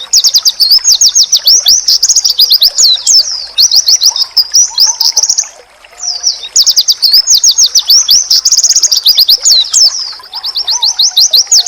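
A white-eye (pleci) singing: long, fast runs of high twittering notes, broken by a short pause about six seconds in.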